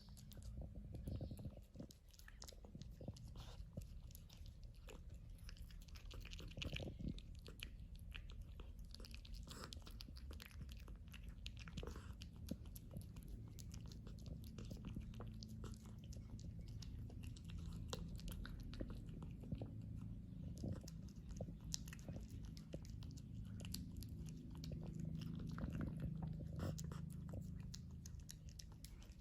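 Cat eating tuna in gravy, heard up close: a dense, continuous run of small wet chewing clicks and smacks.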